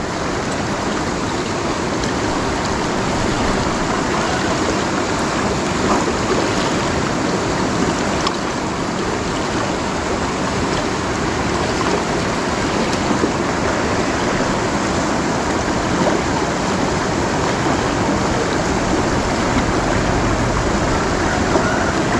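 Shallow rocky river flowing fast: a steady rush of water over stones.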